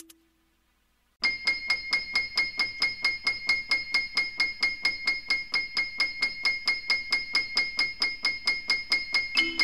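A held note dies away into about a second of near silence. Then a steady pulse of metallic, bell-like strikes starts, about four a second, each ringing on the same high pitch. Near the end a low held note and other pitched notes come in over the pulse.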